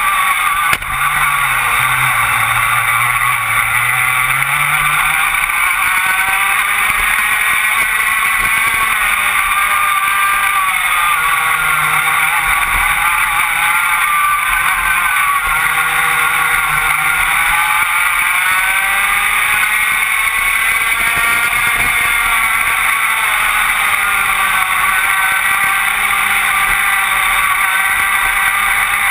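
Rotax Max 125cc two-stroke kart engine at racing revs, heard close up on board the kart. Its pitch dips and climbs again a few times as the kart slows for corners and accelerates out of them.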